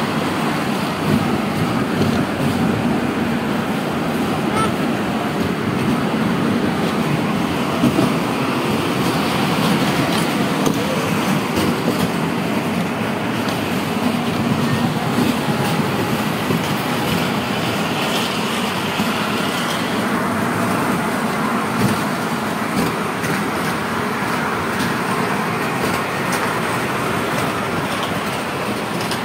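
Small open-carriage tourist ride train running steadily along its narrow elevated rail track: a continuous rumble of wheels and drive with light, rapid clicking from the track.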